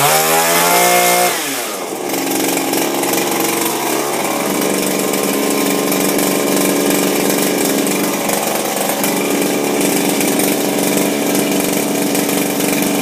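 Two-stroke engine of a Shindaiwa power broom, freshly fitted with a new carburetor, revved up in the first second and then dropping back to a steady idle.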